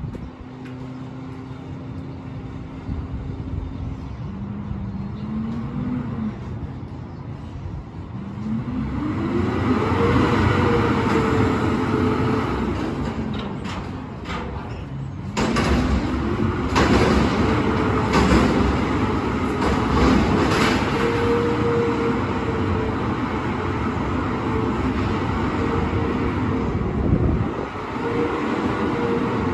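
Garbage truck's diesel engine idling, then revving up and holding high revs as it works its hydraulics, dropping back and revving up again about halfway through. Several sharp bangs come while the engine is revved.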